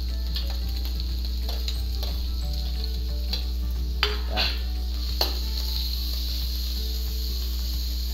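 Shredded chicken, egg and carrots sizzling in oil in a hot wok, a steady frying hiss over a low hum. A few sharp clicks stand out about four to five seconds in.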